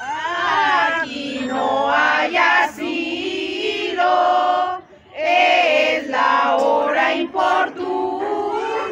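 A group of people, women and children among them, singing a Las Posadas song together without instruments, with a short pause between phrases about five seconds in.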